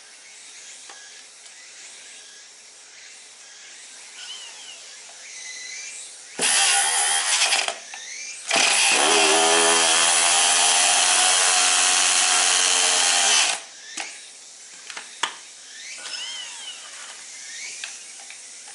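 Hand-held electric starter spinning the Kyosho engine buggy's glow-plug engine: a short burst, then a steady run of about five seconds that rises in pitch as it spins up and stops suddenly. The engine is cranked but does not fire.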